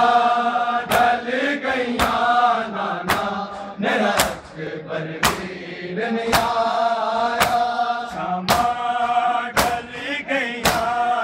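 Group of men chanting a Shia noha (mourning lament), with loud in-unison hand strikes on bare chests (matam) landing about once a second to keep the beat.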